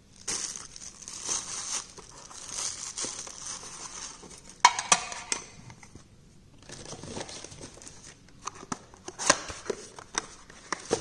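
Thin plastic wrapping bag crinkling and rustling in the hands, with a sharp knock a little under halfway through. After a short pause comes softer handling of the hard watch tin and the cardboard watch box, with several light taps and clicks.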